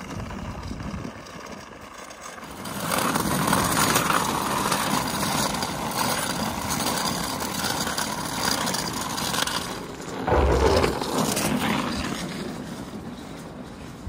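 Hard wheels rolling over skatepark concrete: a gritty rolling noise that builds about three seconds in and holds steady, then a heavy thump about ten seconds in, after which the rolling fades away.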